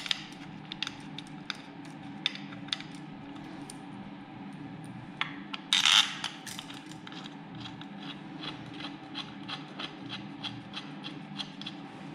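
Hand work on metal engine parts: scattered metal clicks and a short loud scraping clatter about six seconds in, then a ratchet wrench clicking evenly, about three to four clicks a second, as bolts are run in.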